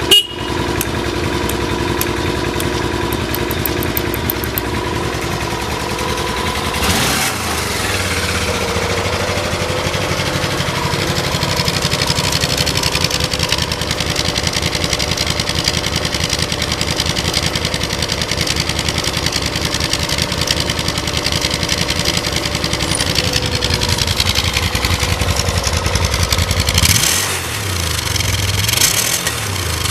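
Desperado 800X motorcycle's V-twin engine idling steadily, with a short click right at the start. There is a brief swing in engine pitch about seven seconds in, and two quick throttle blips near the end that rise and fall.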